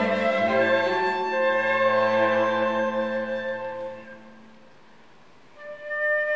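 Flute, violin, viola and cello quartet playing live chamber music: the ensemble holds long notes that die away about four seconds in. After a short pause, a new phrase starts with a held flute note near the end.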